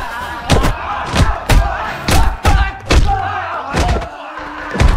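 Film fight sound effects: a rapid, uneven string of heavy punch and kick impacts, about nine in five seconds, with the fighters' grunts and shouts between them.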